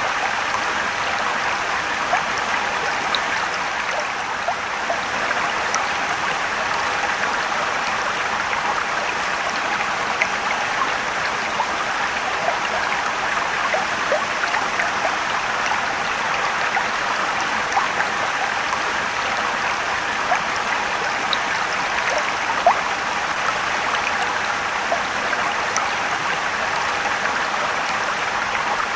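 Mountain waterfall and river water rushing steadily, with small splashes and drips standing out here and there.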